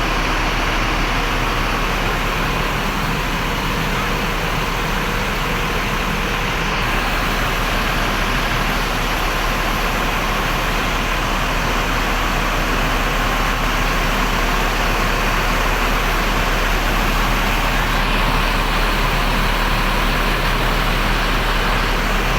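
Steady road-vehicle noise with a constant low hum.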